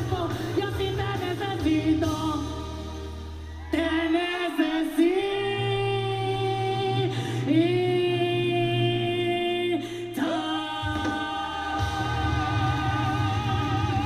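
Male and female singers performing a rock-style duet over band backing music, holding long sung notes; the last one, near the end, wavers with a wide vibrato.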